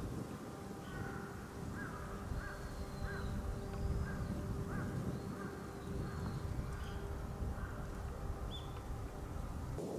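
A crow cawing over and over, about two caws a second for several seconds, over the rumble of wind on the microphone and a faint steady hum.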